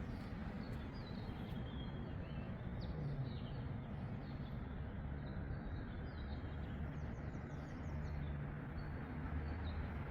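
Steady low rumble of road traffic, with small birds chirping in short high calls over it and a quick run of calls about seven seconds in.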